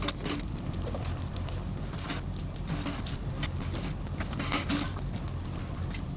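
Brush fire crackling, with many sharp irregular pops, over a steady low rumble.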